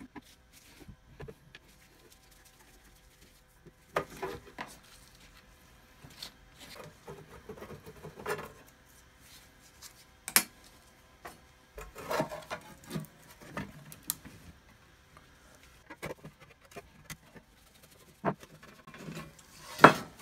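Metal-on-metal hand work on an old bench grinder's base: a screwdriver scraping and turning out the base-plate screws, with screws and the metal plate clinking and knocking as they come free. Scattered sharp clinks, the loudest near the end.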